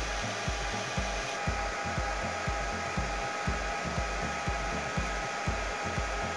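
Background music with a steady beat of about two beats a second and a stepping bass line, over a steady rushing hiss.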